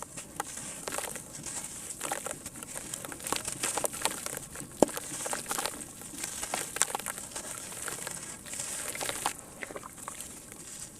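Sand-cement crumbling in water: a steady high hiss with many irregular small crackles and pops, and one sharper snap about halfway through.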